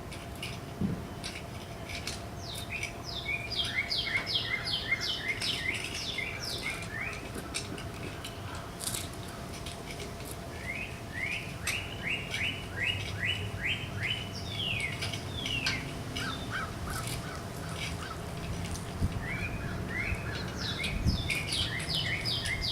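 A songbird singing in three bouts of rapid, repeated down-slurred notes, each bout lasting a few seconds. A faint steady hum and scattered light clicks lie beneath.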